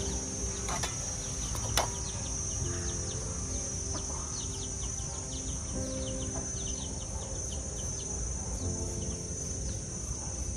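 A steady high-pitched insect drone with many short, falling bird chirps over it. There is one sharp click just under two seconds in.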